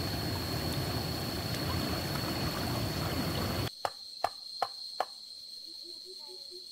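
Shallow stream water rushing steadily through a net fish trap, then cut off abruptly. Four sharp knocks follow, a little under half a second apart.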